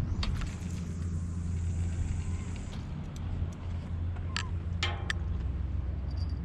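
Fishing line hisses off a spinning reel for about two and a half seconds after a cast, then stops. A few sharp clicks follow as the rig is handled. A steady low rumble runs underneath.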